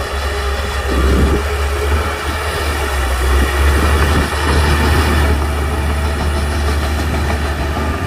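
Shantui DH17C crawler bulldozer's diesel engine running steadily under load, with a strong low drone, as the dozer pushes wet soil with its blade.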